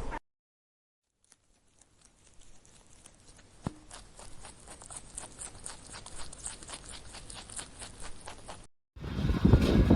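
Quick, evenly spaced footsteps tapping on a hard surface, about four steps a second, growing louder. Near the end there is a sudden cut to loud wind rumble.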